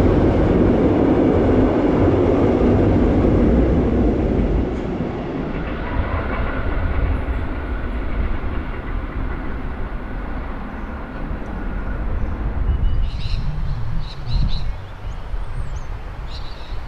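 Wooden-bodied Tait electric suburban train running past on a viaduct, a loud rumble for the first few seconds. It then drops to a quieter passing train with a faint steady whine, and short high bird chirps come in near the end.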